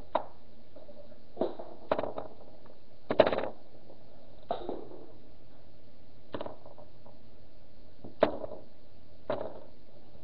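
Irregular sharp taps and knocks, about nine spread across the stretch with gaps of a second or more between them, the loudest a little after three seconds in.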